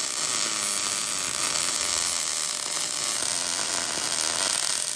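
Electric arc welder running a weld bead, a steady, unbroken sound of the arc.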